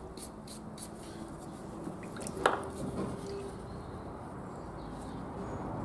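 A few quick strokes of a soft wire brush scrubbing a cleaned engine valve, then a steady background of traffic broken by one sharp knock about two and a half seconds in as the wooden-handled brush is set down on the bench.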